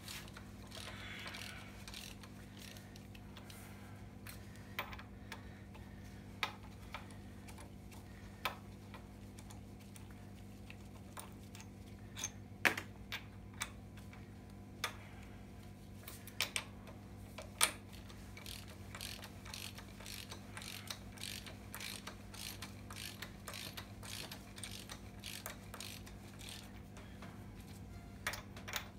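Hand ratchet wrench clicking in short runs, with scattered sharp metal clinks of tools and parts; the clicks come thicker near the end. A steady low hum runs underneath.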